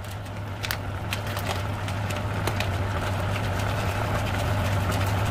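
Food sizzling in a hot pan: a steady hiss with frequent small pops and crackles, growing slowly louder, over a low steady hum.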